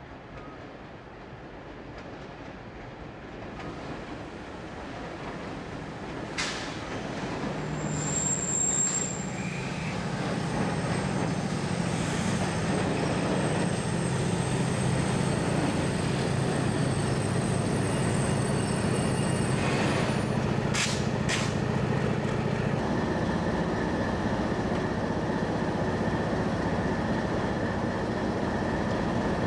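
Freight train drawing in behind two diesel locomotives led by OSE A-456. The diesel engines grow louder over the first dozen seconds, then run steadily, with a brief high squeal about eight seconds in and a few sharp clanks around twenty seconds in. The engine note drops back a little a few seconds later.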